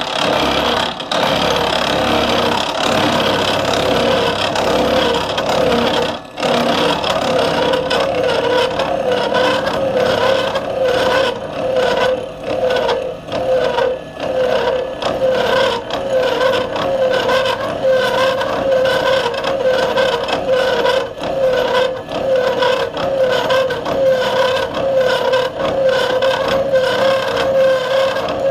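Bridgeport milling machine taking a 5.1 mm deep cut with a 3/16-inch disc cutter into a 4140 steel blank: a steady ringing tone over a gritty cutting noise that rises and falls slightly as the cutter works.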